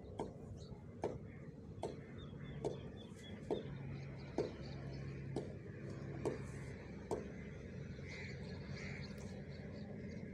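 Faint sharp taps, about one a second for the first seven seconds, as Follow buttons on a smartphone touchscreen are tapped one after another, over low room noise.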